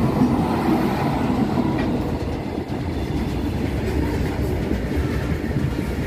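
A train passing close by on the track, loud and steady, with the sound of its wheels running on the rails.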